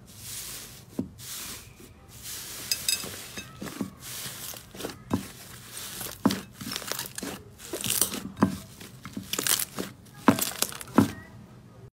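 Puffed-up pink slime squeezed and kneaded by hand, crackling and tearing as trapped air bursts out of it in a string of sharp pops, the loudest near the end.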